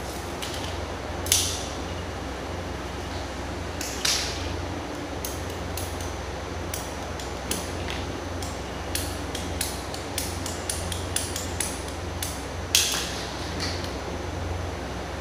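Knocks and clicks of blue PVC water pipes and plastic fittings being handled, with three sharper knocks and a quick run of small clicks near the middle, over a steady low hum.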